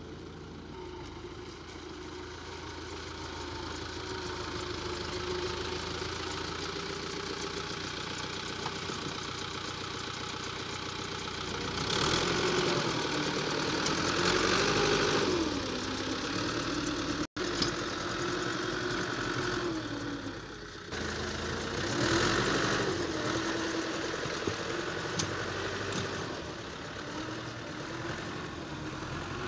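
Farm tractor engine running under load while blading wet mud, its note rising and falling as it works. It gets louder and works harder twice, about twelve and twenty-two seconds in, with a sudden short break a little past the middle.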